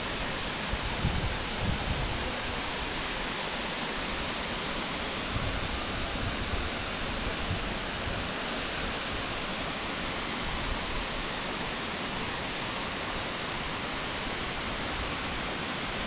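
Waterfall rushing: an even, unbroken noise of falling water, with a few low bumps on the microphone in the first two seconds.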